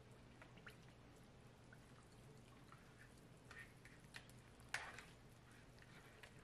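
Faint water sloshing and dripping as hands press skeins of wool yarn under the water in a plastic tub, with one louder slosh about five seconds in.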